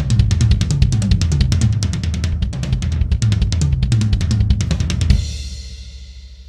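Yamaha Maple Custom maple-shell drum kit played in a fast, dense run of bass drum, snare and cymbal strokes. About five seconds in, it ends on a final hit that rings out and fades.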